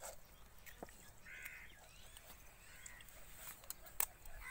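Faint short calls of a bird, one about a second and a half in and another about three seconds in, with a few sharp clicks, the loudest about four seconds in.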